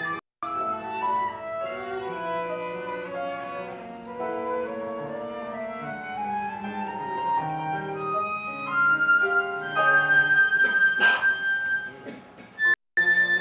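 Flute and cello playing contemporary classical chamber music, with many short notes moving over and under each other. Late on, the flute holds one long high note. The sound drops out briefly just after the start and again near the end.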